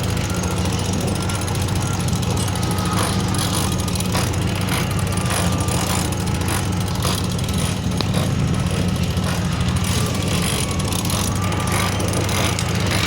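Steady, loud rushing and low rumbling of wind buffeting the microphone on a sailboat under way in strong wind.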